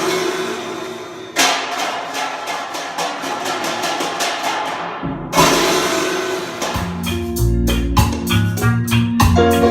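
Recorded music with drums played through Elac Debut B6.2 bookshelf speakers, picked up by a phone microphone. Two loud percussion hits ring out and fade, then about seven seconds in a steady beat with bass notes comes in.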